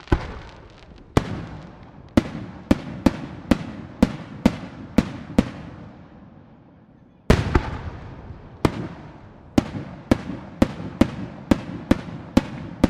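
Aerial firework shells bursting in quick succession: a run of sharp bangs about two a second, a short lull, then a second run from about seven seconds in, each bang followed by a rolling echo.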